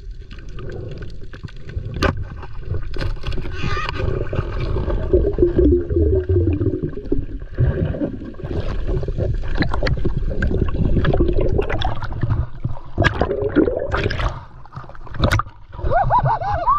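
Muffled underwater sound picked up by a speargun-mounted camera during a dive: gurgling, rushing water and a low rumble, with a few sharp clicks.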